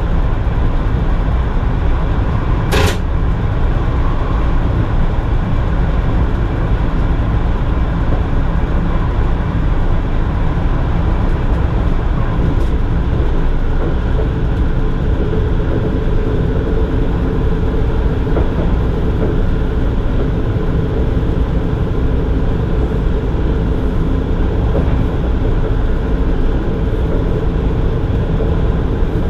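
Running noise inside the cab of an NS Mat '64 electric multiple unit under way: a steady low rumble from the running gear. A single sharp click comes about three seconds in, and a steady hum joins about halfway through.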